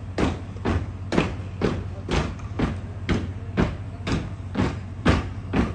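Soldiers' boots stamping in unison on a stage floor during a marching drill, about two stamps a second in a steady left-right beat, over a low steady hum.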